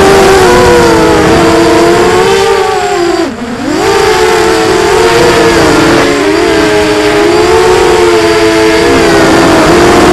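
Quadrysteria Mini Mamba V2 racing quadcopter's brushless motors and propellers whining, heard close from its onboard camera. Several close pitches waver together as the throttle changes. A little over three seconds in the pitch and loudness drop sharply as the throttle is chopped, then climb straight back up.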